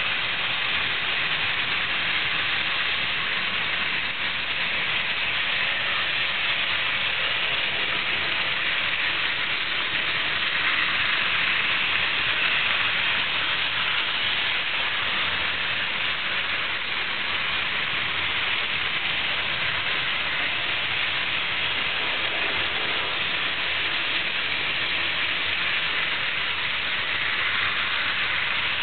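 Trix model train running on the layout's track: a steady, even whirring rush of motor and wheels that goes on without a break.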